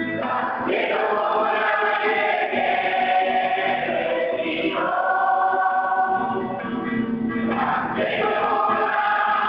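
A group of children and women singing a song together in long held notes, with a new line starting every three to four seconds.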